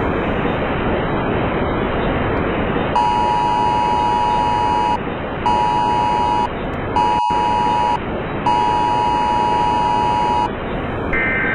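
Emergency Alert System attention signal: the two-tone 853 and 960 Hz alarm sounds in four broken blasts over a steady hiss, the first and last about two seconds long and the middle two about a second. Near the end a short burst of higher SAME header data tones starts.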